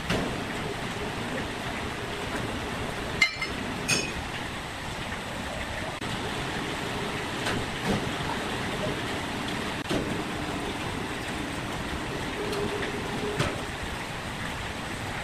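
Steady drone of sawmill machinery with two sharp metallic clinks of steel cables and hooks being handled a few seconds in, followed by a few dull knocks of heavy timber being shifted.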